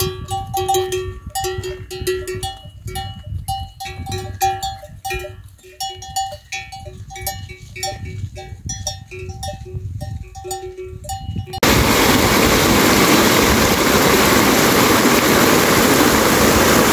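Livestock bells on buffalo clanking as the animals walk, a couple of strokes a second. About twelve seconds in, this gives way to a torrent of muddy runoff water rushing, loud and steady, over a bank.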